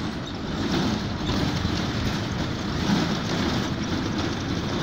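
Moving bus heard from an open side window: steady engine rumble mixed with tyre and wind noise as it drives along.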